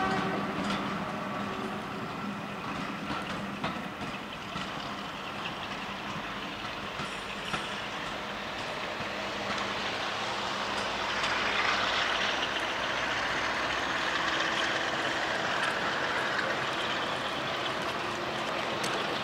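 Heritage passenger coaches rolling away over pointwork, their wheels rumbling steadily with scattered clicks as they pass over rail joints and points.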